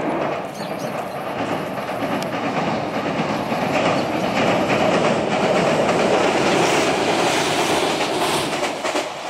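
Meitetsu electric train running past, its wheels clattering over the rail joints; the sound swells to its loudest in the middle and eases near the end.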